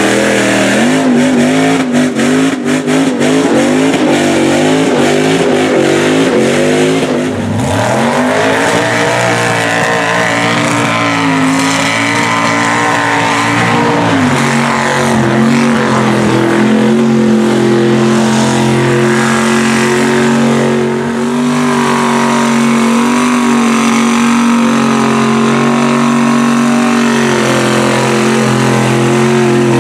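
Mud trucks on big tractor tires running hard through deep mud and water, engines revving loudly. The engine pitch rises and falls over the first several seconds, then holds steady at high revs as a truck churns on.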